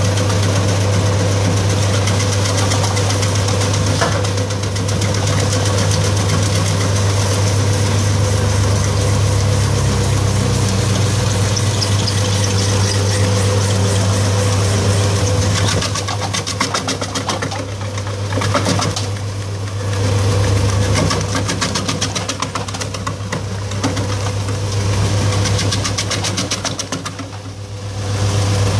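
EC312 electric vegetable chopper running with a strong, steady low hum while slicing lemongrass and galangal. From about halfway the loudness rises and falls unevenly.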